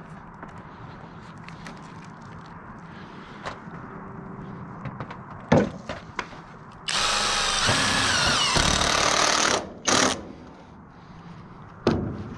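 Cordless impact driver driving a screw through steel roof flashing into the timber below, running steadily for about three seconds, then a short second burst. A few sharp knocks come just before it and one more near the end.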